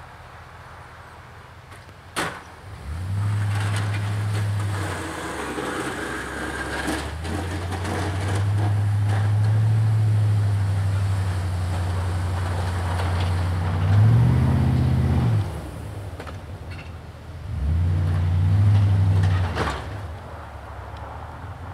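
Duramax diesel engine of a Chevy Silverado 2500HD pickup working under load as the truck pushes snow with a V-plow, revving up and easing off three times. A sharp knock comes about two seconds in.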